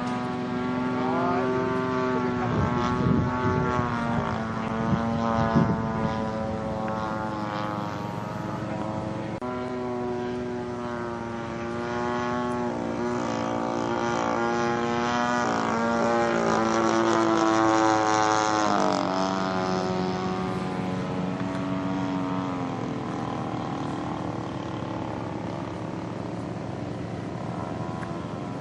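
RCGF 20cc Stinger gas engine on a Seagull Yak 54 RC stunt plane in flight, its pitch rising and falling with throttle and passes, and dropping sharply about 19 seconds in as the plane goes by. Gusts of wind buffet the microphone a few seconds in.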